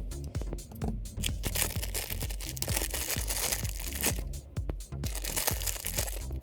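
Background electronic music with a steady beat, over which packaging rustles and tears in two long spells, one in the first half and a shorter one near the end.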